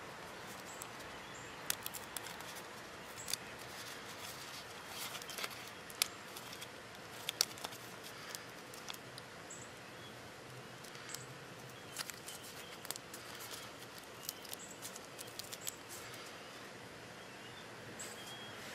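Paper-backed adhesive film dressing being handled, giving scattered sharp crinkles and clicks over a steady background hiss.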